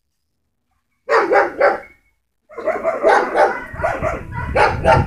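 Dogs barking in high, sharp barks: three quick barks about a second in, then after a short pause a fast, continuous run of barking. A low rumble sits under the barking in the second half.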